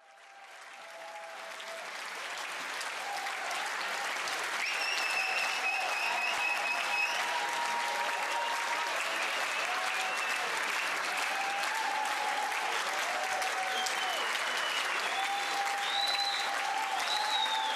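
Concert audience applauding and cheering, with a few high whistles and shouts. It fades in over the first few seconds, then keeps up steadily.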